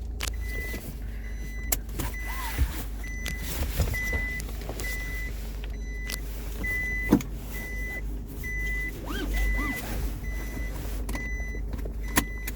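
Nissan Navara rear seat-belt warning chime beeping steadily at one pitch, a little under two beeps a second, with a few knocks and thumps as a passenger settles into the rear seat, the loudest about seven seconds in. The chime is warning for rear seats that are empty: a seat-belt reminder fault.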